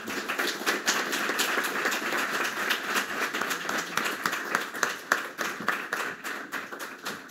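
Audience applauding: many pairs of hands clapping in a steady round that thins out and fades near the end.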